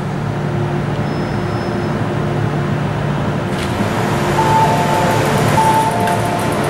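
MTR Kwun Tong Line train drawing to a stop at an underground platform with a steady hum, a knock about three and a half seconds in, then a repeated two-tone electronic chime as the train and platform screen doors open.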